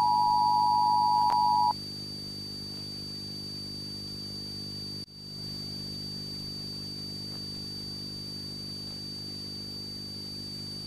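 A loud steady electronic beep tone cuts off abruptly. It leaves a steady low electrical hum with a faint high-pitched whine over it, like a blank analog video signal, which briefly drops out about five seconds in.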